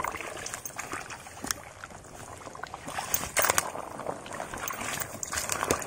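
Someone pushing on foot through a swampy thicket: dry leaves and twigs crackling underfoot and branches brushing past, with a few sharper snaps, the loudest about halfway through.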